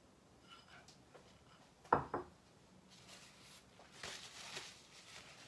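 Quiet kitchen room tone. About two seconds in there is one sharp knock, a small glass bowl being set down. A brief soft hiss follows at about four seconds.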